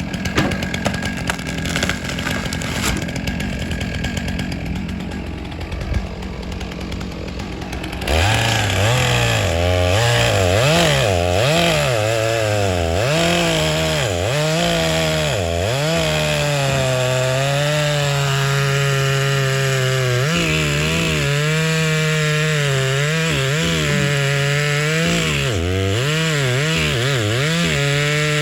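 Chainsaw cutting through logs. About eight seconds in it comes up to full throttle, loud, and its pitch dips and recovers again and again as the chain bogs in the wood, then runs steadier toward the end. Before that there is a lower, rougher engine noise with clicks.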